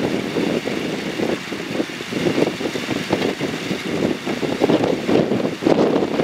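JR Kyushu 415 series AC/DC electric train running, a steady rumble at an even level throughout.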